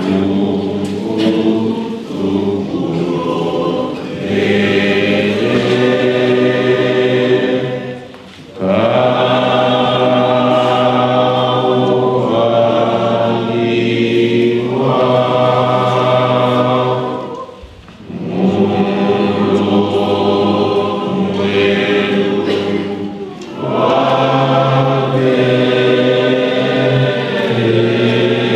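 Choir singing a slow hymn in long held chords, pausing briefly between phrases.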